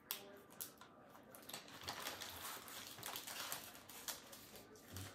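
Small packaging being handled and opened by hand: crinkling and rustling with a quick run of sharp clicks, busiest in the middle.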